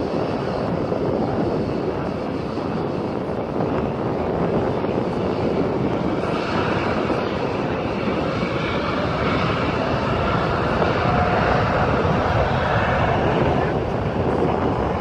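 Jet engines of a LAN Boeing 787 airliner, a continuous rushing roar that swells and grows brighter from about six seconds in, easing slightly near the end.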